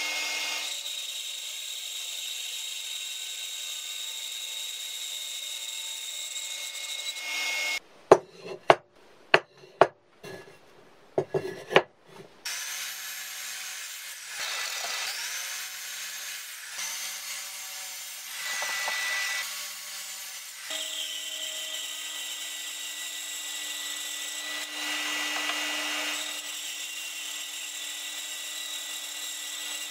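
Bandsaw running steadily and cutting wooden blocks. About eight seconds in it gives way to several loud, sharp wooden knocks over a few seconds. Then a sliding mitre saw runs through cuts, and the steady bandsaw sound returns for the last third.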